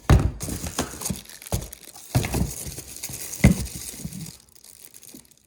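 Packaging crinkling and rustling while the parts of a new battery chainsaw kit are handled, with several sharp knocks and thumps, the loudest near the start and about three and a half seconds in.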